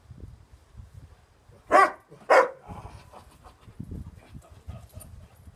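A Doberman barks twice: two short, loud barks about half a second apart.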